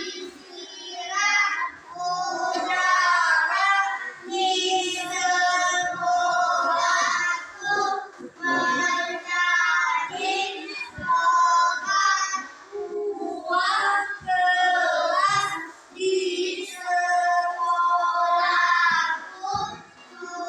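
A group of young children singing together in unison, in phrases broken by short pauses.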